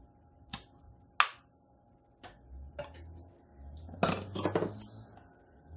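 Kitchen handling sounds while opening a carton of heavy whipping cream: a few sharp clicks, the loudest about a second in as the plastic cap is twisted open, then a quick cluster of light knocks and rattles about four seconds in as kitchenware is handled.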